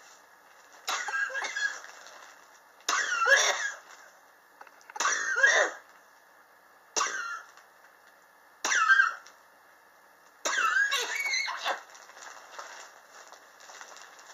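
A person coughing in six separate bouts about two seconds apart, each a short harsh burst, the last one longer. It is a chronic cough that has lasted for years.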